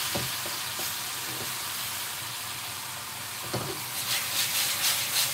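Turkey strips and vegetables sizzling steadily in a hot wok over a gas flame. In the second half the food is stirred and tossed in quick strokes, several a second.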